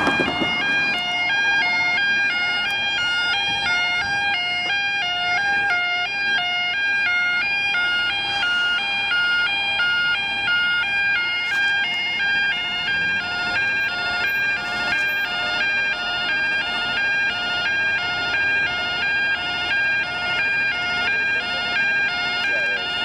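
Yodalarm YO5 level crossing alarm sounding continuously, switching rapidly back and forth between two pitches. It is the warning that the crossing has activated for an approaching train.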